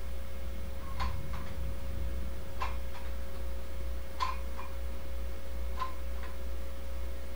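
Dumbbell clicking with each rep of hammer curls: short clicks, mostly in pairs, about every second and a half, over a steady hum.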